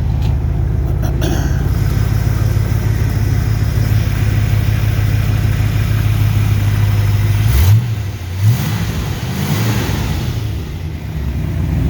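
1965 Corvette's 327 cubic-inch, 250-horsepower small-block V8 idling steadily, then revved twice in quick succession about three quarters of the way through before settling back. The seller judges that it sounds pretty good.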